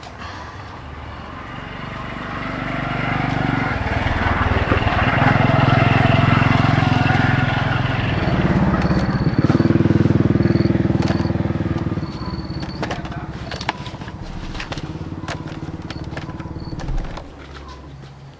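A motor vehicle engine grows louder, passes close by and fades away.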